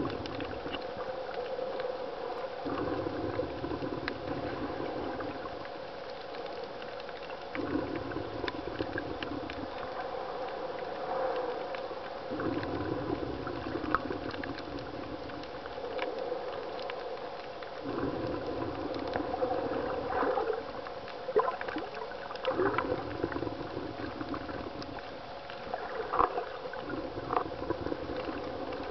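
Underwater sound of surging, churning water over a reef, with a low rumble that swells and fades every few seconds as the water moves, scattered clicks and crackles, and a steady faint hum.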